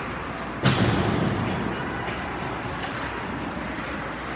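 One loud thud about half a second in, with a deep low end that dies away over about half a second: a hit against the hockey rink's boards. A few fainter knocks follow over the steady hum of the arena.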